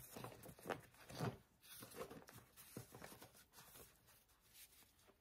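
Faint rustling and light taps of a stack of coloured cardstock being handled and leafed through, a little louder in the first second or so, then dying away to near silence.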